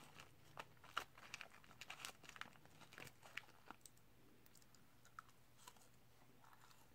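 Faint clicking and scraping of a plastic fork against a paper fry boat as fries are picked up, thick over the first four seconds and then thinning out. Near the end come a few soft chewing sounds.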